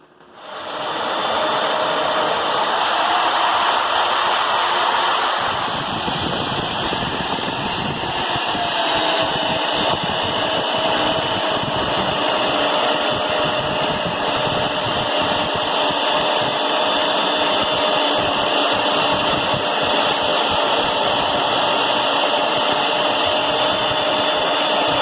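Climax BB5000 portable line boring machine starting up and running steadily, with a steady whine over the machine noise. The sound gets fuller about five seconds in.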